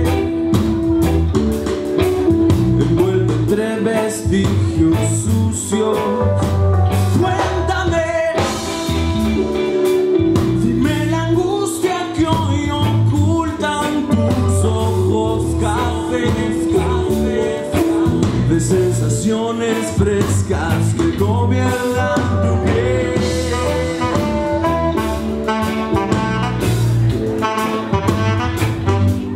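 Live band music: a man singing over drum kit, electric bass and saxophone, at a steady beat.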